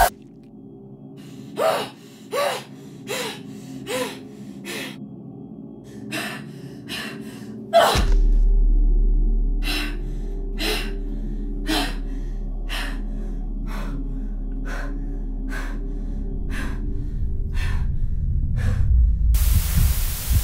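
A person gasping for breath in short, sharp gasps about every three-quarters of a second, over a low film-score drone that comes in with a hit about eight seconds in. A burst of hiss sounds near the end.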